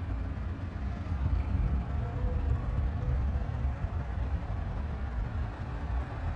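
Outdoor ambience across open water: a low, uneven rumble with a fainter hiss above it, swelling a little a second or so in.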